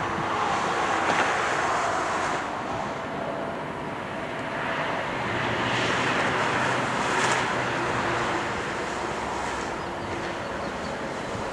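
Twin-engine jet airliner on final approach passing near and flying away, its engines a continuous rushing roar that swells about a second in and again around the middle. Wind buffets the microphone.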